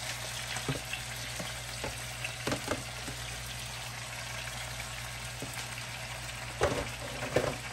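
Hot oil sizzling steadily in a frying pan, with scattered light knocks from handling the cooked chicken and a louder clatter about a second before the end.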